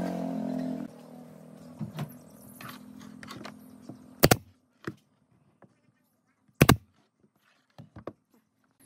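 A machine hum that cuts off under a second in, then scattered sharp knocks, typical of work on wood in a workshop; two of the knocks are loud, about two and a half seconds apart, and the rest are light taps.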